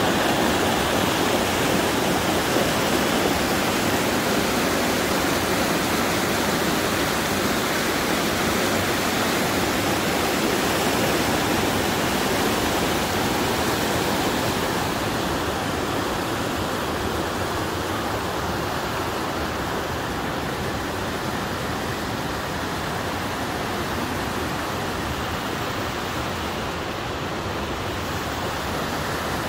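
Fast mountain stream rushing over boulders in whitewater rapids: a steady, dense rush of water that grows a little softer and duller about halfway through.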